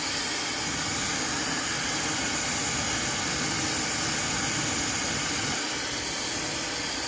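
Fentgo negative-ionic hair dryer running steadily on its hot (red) heat setting: a constant rush of blown air with a motor hum.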